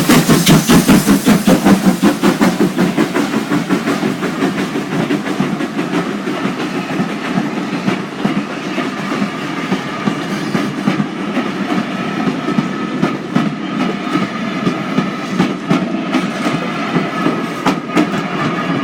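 Steam-hauled passenger train, headed by GWR 2800-class locomotive 2857, passing close by. It is loudest as the engine goes past in the first couple of seconds, then the coaches clatter steadily over the rail joints, with a thin steady ringing tone in the second half.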